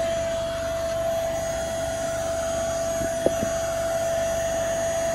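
Electric paddleboard pump, powered from a car's 12-volt outlet, running steadily with a constant hum as it inflates an inflatable stand-up paddleboard. A single sharp click about three seconds in.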